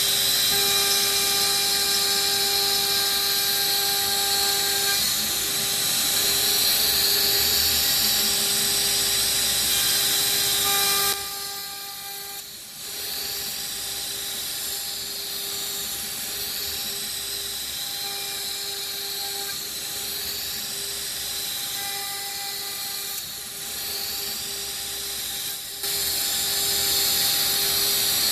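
CNC router spindle with an end mill cutting MDF: a steady high whine with cutting noise. The sound drops noticeably about eleven seconds in and comes back up near the end.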